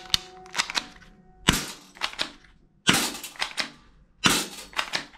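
Plastic clacks and clicks from a gold toy pistol being worked by hand, its slide racked and trigger pulled, in about six quick groups of sharp snaps.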